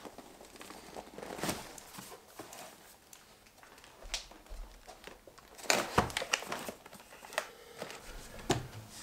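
Cardboard boxes of 3D-printer filament spools being set down and stacked on a wooden table: scattered knocks and scrapes, the loudest cluster about six seconds in, with rustling of handling between.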